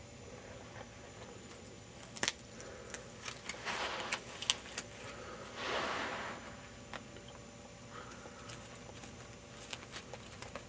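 A Niger uromastyx biting and tearing at romaine lettuce: a run of crisp clicks and crackles from about two seconds in, then a short rustle of the leaves, with a few faint clicks after.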